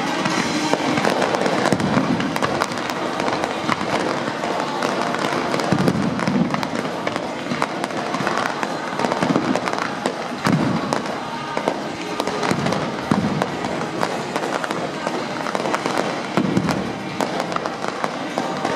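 Fireworks display: a continuous barrage of low-level shells, comets and mines firing, dense crackle and pops with heavier thumps every few seconds.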